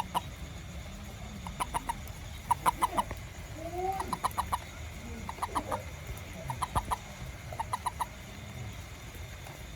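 Short bursts of three to five quick calls, repeated about once a second, with one longer rising-and-falling call near the middle.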